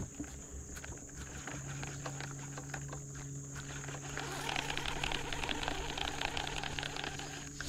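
A fishing reel being cranked to retrieve a lure, heard as a fast run of fine ticking in the second half, over a steady low hum.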